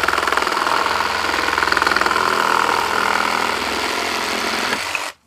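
Meterk 20V cordless reciprocating saw cutting wood in orbital mode, its blade strokes a fast, even buzz as it cuts under its own weight without being pushed. It stops abruptly about five seconds in.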